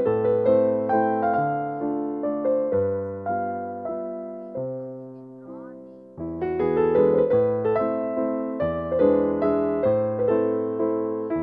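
Slow, gentle piano music with single notes and chords that each ring and fade. It thins to a soft passage, then fuller chords come back about six seconds in.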